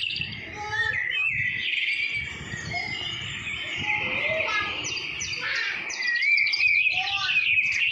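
Many birds chirping and calling at once, with short, quick, overlapping notes over a low rumble.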